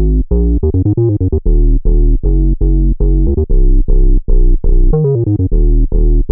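Omnisphere "Square My Bass" synth bass patch played from a keyboard: a busy line of short, punchy square-ish bass notes, about three a second, each bright at the attack and quickly darkening. A quick run of notes comes about a second in and a short pitch slide near five seconds.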